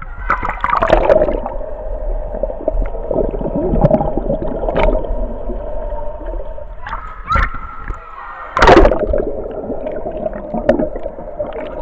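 Pool water gurgling and sloshing around a camera as it dips under the surface of a swimming pool, with a steady muffled underwater hum and scattered splashes. A loud splash comes about nine seconds in.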